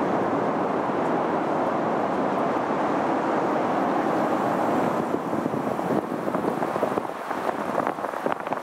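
Wind rushing over the microphone of a camera mounted on the roof of a moving car, mixed with tyre and road noise: a steady rush that turns choppier and less even about five seconds in.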